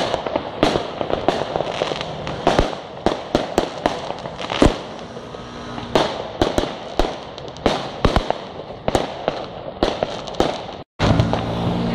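Fireworks display: a rapid, irregular series of sharp bangs and crackles from bursting shells, several a second. The sound cuts out for an instant near the end.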